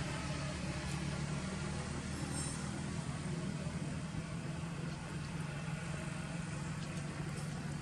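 A steady low mechanical hum, like an engine running.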